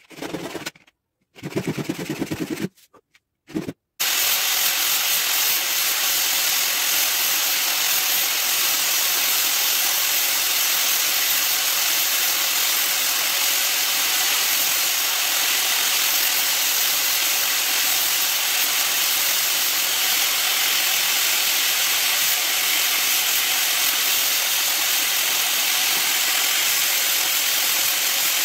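A few short strokes of resin being rubbed by hand on sandpaper. About four seconds in, an electric grinder with a sanding disc starts running steadily, and the resin ring is pressed against the spinning disc, giving a loud, even grinding hiss.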